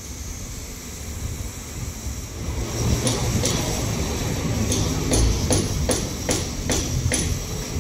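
A ballast regulator's engine running as it moves along the track and draws near. A series of sharp clanks, about two a second, starts about three seconds in.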